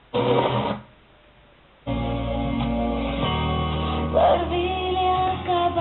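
Music: sustained keyboard or organ chords start about two seconds in, after a short burst of sound and a gap. A voice sings long held notes over the chords near the end.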